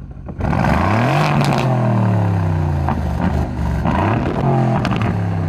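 Aston Martin Vantage Roadster's twin-turbo V8, in track mode, revved at a standstill through its quad exhaust. A sharp rev about half a second in falls away slowly, and a second, shorter rev comes about four seconds in, with a few sharp cracks from the exhaust along the way.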